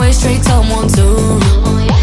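Background electronic dance music, a heavy kick drum beating about twice a second under a wavering melody.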